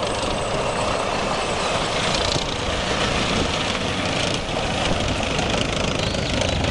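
AMX-30 main battle tank driving slowly, its engine and tracks making a steady, even running noise.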